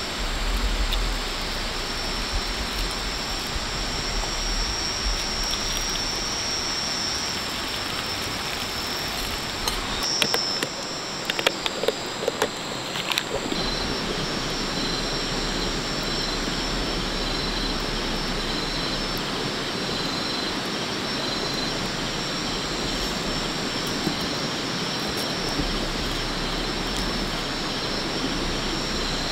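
Running water of a forest stream, a steady rush. Insects call over it in a steady high drone and a regularly pulsing chirp, and a few sharp clicks and knocks come about ten to thirteen seconds in.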